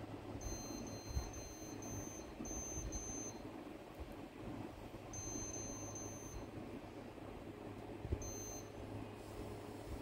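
The indoor unit of a Changhong CSC-18T1 split air conditioner beeps once for each remote command it receives as the set temperature is stepped up. The beeps are short and high: a quick run in the first three seconds, another run about five seconds in, and a single beep a little after eight seconds. A steady low hum and air noise run underneath.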